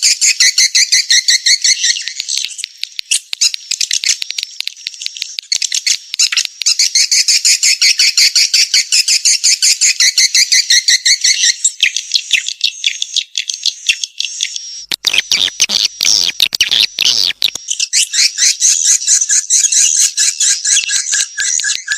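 Swiftlet lure call track: dense, rapid, high chirping and twittering of edible-nest swiftlets, the kind of call played to draw swiftlets into a nesting house. About fifteen seconds in, a harsher, rasping stretch lasts two to three seconds before the chirping resumes.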